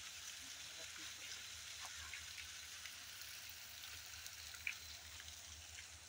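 Faint, steady hiss of light monsoon rain, with a few small drop-like ticks.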